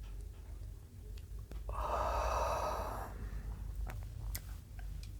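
A woman's single breathy, yawning exhale through an open throat, about a second and a half long, starting just under two seconds in. It comes from a low, throat-filling 'oo' made to bring on a yawn, an anti-snoring throat exercise.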